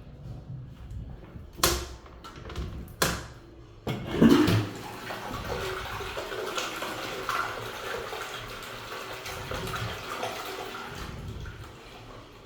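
TOTO toilet flushing: two sharp clicks, then about four seconds in a sudden loud rush of water that runs steadily for about seven seconds before tailing off near the end.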